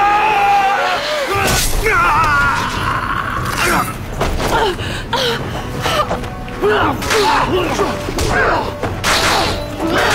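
Dramatic background music over a fight, with cries and gasps and repeated thuds of blows.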